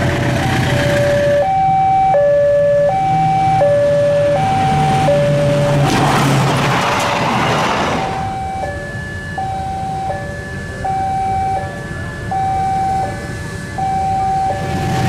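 Railway level-crossing warning alarm sounding a repeating two-tone electronic ding-dong, low and high notes alternating about every 0.7 s, while a diesel locomotive passes with its engine running; a loud rush of train noise comes through about six seconds in.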